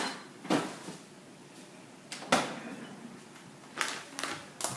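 Sharp knocks and clatters of kitchen items being handled and set down on a counter, about six in all, the loudest a little over two seconds in.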